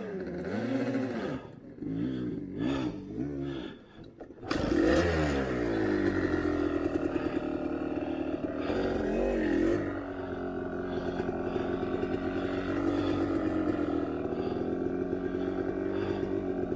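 Dirt bike engine blipping on and off for the first few seconds, then revving up sharply about four seconds in and held at high revs, with a brief dip near the middle.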